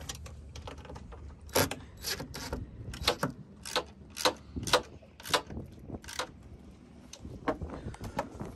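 Cordless drill driving screws into a stainless steel rod-holder mount: a string of sharp metallic clicks at irregular spacing, roughly two a second.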